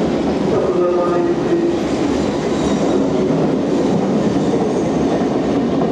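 London Underground C stock train running into the station on the track alongside the platform, with steady loud rail and wheel noise and a faint falling whine in the first second or so.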